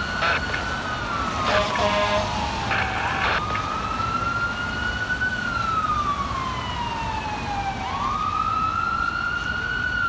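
Fire truck siren on a 2016 Spartan Gladiator / Smeal ladder truck wailing: a tone that rises quickly and falls slowly, in cycles of about five seconds. About one and a half seconds in, a short blast of its air horn is heard.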